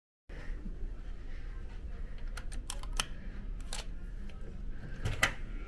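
Several sharp clicks from a ship's cabin door lock and handle as the door is unlocked and opened, the loudest a little over five seconds in. A steady low hum runs underneath.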